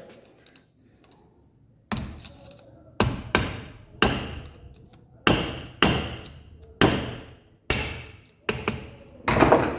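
About ten sharp metal-on-metal knocks, irregularly spaced and each ringing briefly, starting about two seconds in, as a steel rod is tapped against the shaft bush and bearing in the opened crankcase of a Hero Splendor Plus engine.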